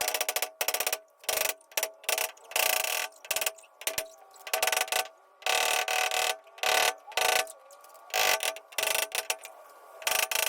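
Claw hammer striking the 1989 Ford Bronco's steel tailgate to knock out dents, in quick clusters of blows with the sheet metal ringing after each.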